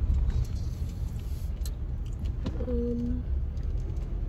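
Car running, heard from inside the cabin as a steady low rumble, with a short low humming tone about two and a half seconds in.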